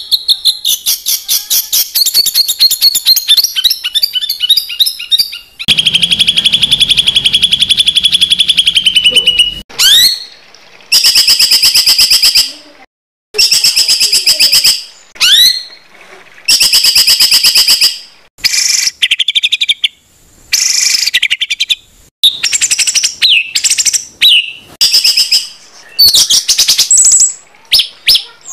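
Songbird masteran song: loud, rapid high-pitched trills and rough, emphatic burst phrases (tembakan kasar), repeated one after another with short pauses. A long unbroken rapid trill runs from about six to ten seconds in.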